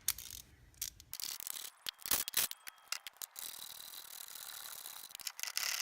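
Socket ratchet clicking as the fender's mounting bolts are worked loose: scattered clicks and taps at first, then a run of fast, even ratcheting from about halfway through.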